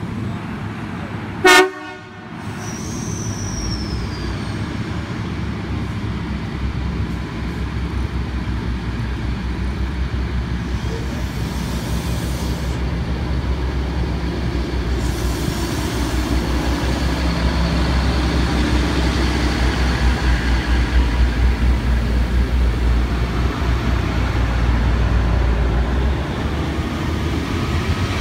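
NSW TrainLink Xplorer diesel multiple unit departing. Its horn gives one short, loud toot about a second and a half in, then its diesel engines' low rumble grows louder as the railcars pull away past the platform.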